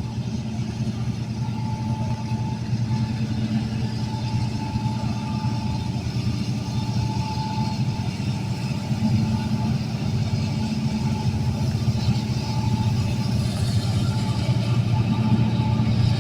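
Diesel freight locomotives running with a steady low engine rumble that slowly grows louder as the train approaches.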